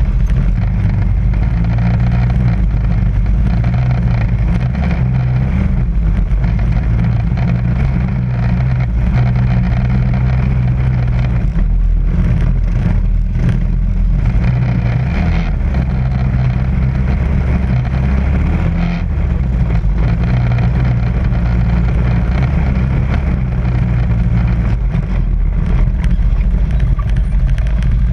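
ATV engine running, heard close from the quad that carries the camera: a steady deep note whose pitch steps up and down as the throttle changes on a slow crawl.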